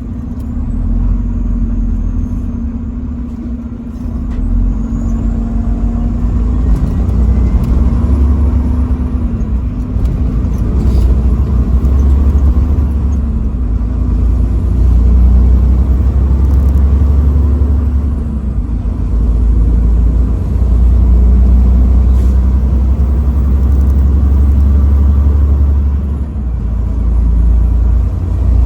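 A motor vehicle driving on the road: a steady, heavy low rumble of road and engine noise that swells and eases in level several times.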